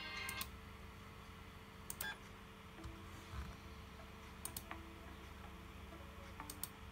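Faint clicks of a laptop's pointer buttons, mostly in quick pairs about every two seconds, over a low steady hum.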